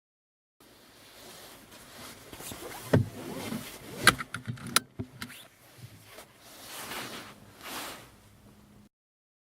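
Car seat belt being fastened: the webbing rustles and slides as it is drawn out, a cluster of sharp clicks comes in the middle as the metal tongue is handled and latched into the buckle, and two more webbing swishes follow near the end.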